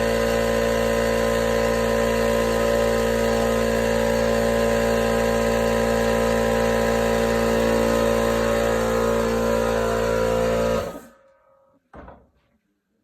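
21-gallon Harbor Freight air compressor running with a loud, steady motor-and-pump drone, then shutting off abruptly near the end. A short knock follows about a second later.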